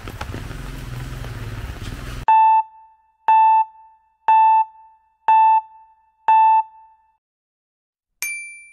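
Outdoor rain and street noise cuts off abruptly about two seconds in. Over silence, five short electronic beeps at one steady mid pitch sound one a second, then a single higher beep near the end, like a countdown timer sound effect.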